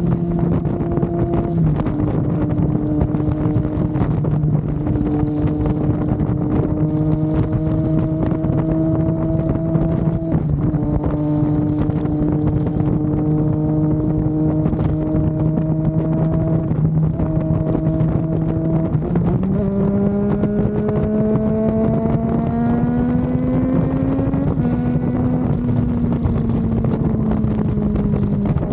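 Triumph Daytona 660's three-cylinder engine cruising at speed under a steady throttle, its note stepping down about a third of the way in as it changes gear, then climbing steadily for a few seconds before easing off again. Wind rushes over the microphone throughout.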